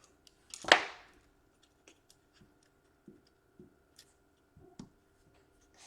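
Laptop parts being handled on a workbench during reassembly: one louder brief scrape under a second in, then scattered small clicks and taps. A faint steady hum runs underneath.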